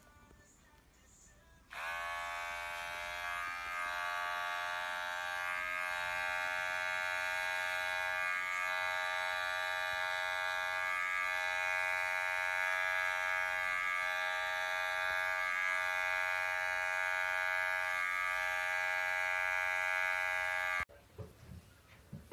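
Electric pet hair clipper running with a steady buzzing hum: it switches on about two seconds in, holds steady with brief small falters every few seconds, and stops abruptly near the end.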